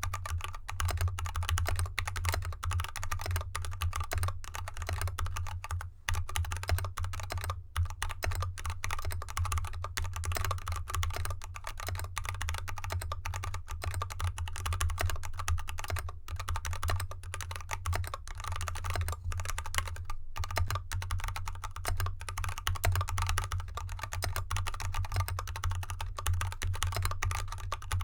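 Fast, continuous typing on a mechanical keyboard with unlubed Kailh Box Red Pro 35gf linear switches, XDA keycaps and an aluminium case with dampening foam, resting on felt fabric. The keystrokes stop briefly about twenty seconds in, then go on, over a steady low hum.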